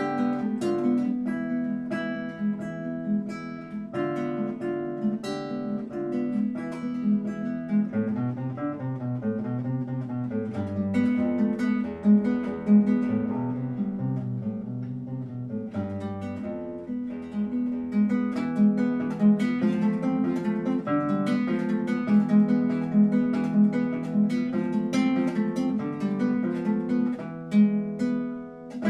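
Solo acoustic guitar: a plucked melody over bass notes, broken by sharp strummed chords, with a passage of low bass notes in the middle and a last chord struck and left ringing at the end.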